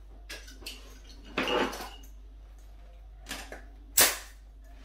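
Metal caulking gun handled while its adhesive tube is swapped: a few light clicks, a longer metallic rattle about a second and a half in, and a sharp metallic clack about four seconds in, the loudest sound.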